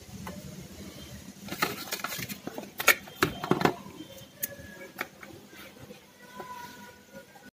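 Handling noise from a dishwasher's plastic pump assembly and wiring: a run of clicks, knocks and rattles, then a few single clicks, as hands work the parts and wire connectors.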